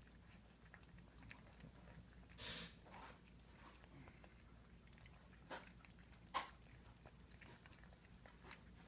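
A cat eating from a plate: faint, scattered chewing and crunching clicks, with one sharper click about six seconds in.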